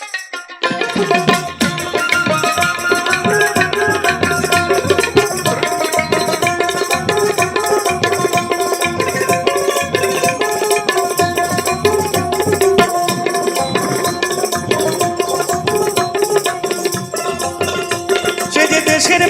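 Instrumental interlude of a Bengali Baul folk song: hand drums keep a quick rhythm under melody instruments, the full band coming in about a second in.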